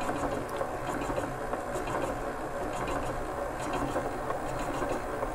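Electric stand mixer running steadily at low speed, its silicone-edged beater working an egg into creamed butter and sugar.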